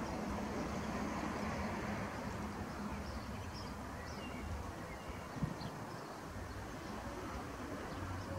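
Outdoor background: a steady low rumble, with a few faint short bird chirps in the middle and a single click about five and a half seconds in.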